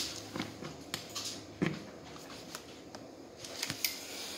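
Scattered plastic clicks, knocks and rustles of hands handling a ride-on toy motorcycle and its charger cable, with one sharper knock about a second and a half in.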